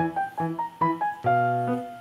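Background piano music: a light melody of single struck notes and chords.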